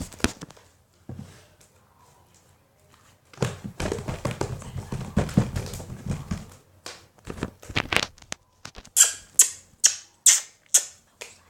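Slime being handled and squeezed, ending in a quick run of sharp crackly snaps, about three a second.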